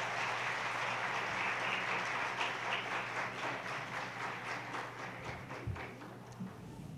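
Audience applauding, a dense clatter of many hands clapping that gradually thins out and fades away over the last few seconds.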